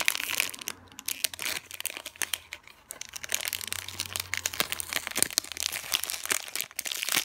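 Thin clear plastic bag crinkling and crackling in quick, irregular bursts as fingers squeeze a foam squishy toy inside it and work the bag open.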